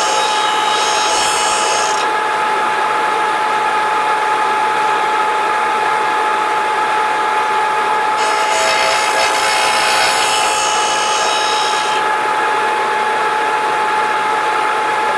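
A flat-plate grinding machine runs with a steady whine while the steel rails of a chainsaw bar are ground against its abrasive plate. Grinding hiss in the first two seconds and again from about eight to twelve seconds in, as the rails are trued so both sides are level for the chain to ride in.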